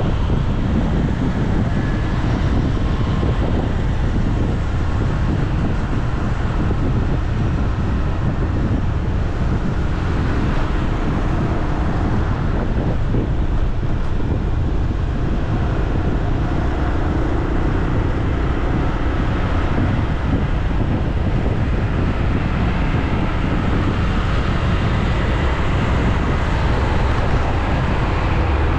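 Steady road traffic noise, with wind rumbling on the microphone.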